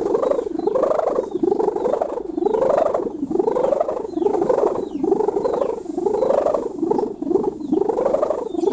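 Kite sendaren (hummer) with a packing-strap and plastic-film reed giving its "ngorok" (snoring) buzz: a steady rattling drone that swells and sweeps up and down in pitch about one and a half times a second.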